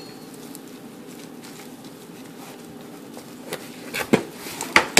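Gloved hands handling a foam meat tray in a stainless steel sink: a few light knocks and taps in the last second and a half, after a stretch of low, steady room noise.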